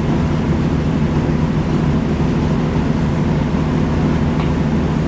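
Steady low droning hum with a hiss over it, constant and unbroken, like a machine running in the background.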